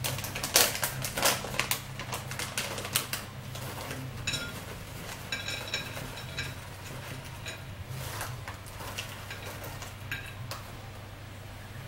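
Plastic snack pouch crinkling as hands open it and dig into it: quick runs of crackles, busiest in the first few seconds, then sparser.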